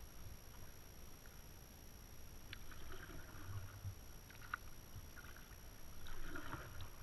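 Kayak paddle strokes: the blade dipping and splashing in the water a few times, faintly.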